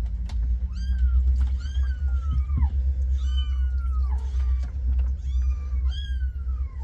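Kittens mewing over and over during a warm-water bath, about ten high-pitched cries that each slide downward in pitch, with a steady low hum underneath.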